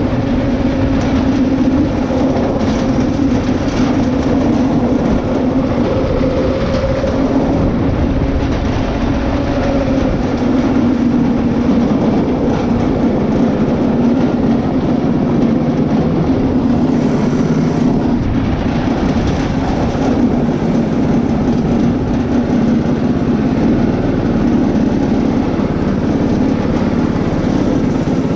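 Murray go-kart's Predator small engine, its governor removed, running steadily under way with a constant hum.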